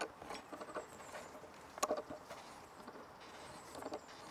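Large C-clamp being cranked down on a motorcycle tire's sidewall to break the bead: faint scattered clicks and knocks from the screw and handle, with a small cluster about two seconds in and another near the end.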